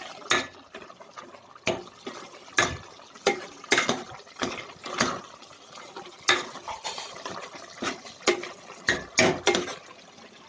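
A spoon knocking and scraping against a cooking pot as mutton curry with garlic and masala paste is stirred, in about fifteen sharp, irregular clanks.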